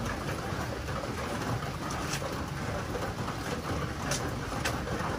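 Steady rain falling, with a few sharp ticks about two seconds in and again near the end.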